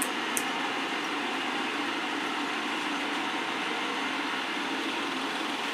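Steady mechanical hum and hiss, with two light clicks in the first half second.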